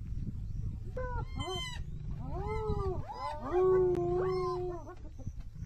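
Spotted hyenas calling: several overlapping rising-and-falling cries, with one long held cry a little over halfway through as the loudest. These are the clan's laughing, howling calls, made when excited or to intimidate another predator, here lionesses on a kill. A steady low rumble runs underneath.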